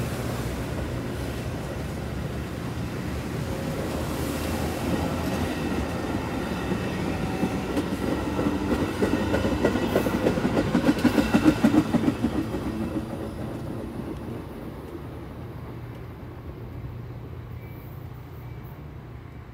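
Metra bilevel commuter coaches rolling past close by with a steady rumble and quick wheel clacks over the rail joints. The sound is loudest about two-thirds of the way in, then fades as the train pulls away.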